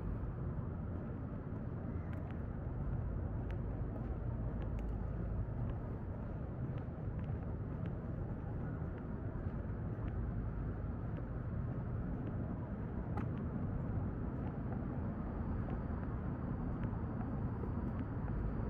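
Outdoor city ambience: a steady low rumble of distant road traffic, with faint scattered clicks.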